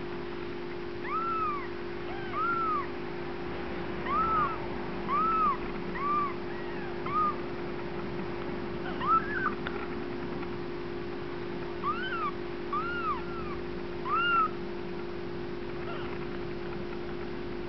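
Newborn Bengal kittens mewing: about a dozen short, high cries spread through, each rising then falling in pitch, some in quick pairs. A steady low hum runs underneath.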